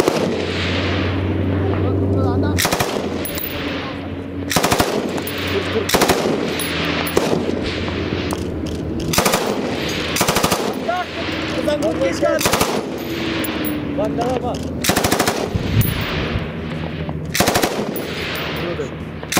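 M249-type belt-fed light machine guns firing short bursts, about nine loud bursts spaced one to two and a half seconds apart, with further rapid gunfire from the firing line between them.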